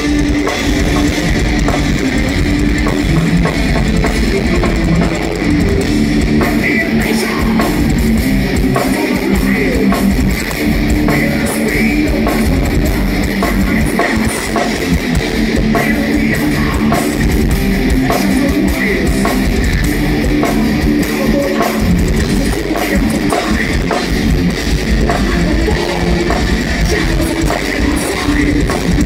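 Thrash metal band playing live and loud: distorted electric guitars over a fast-pounding drum kit.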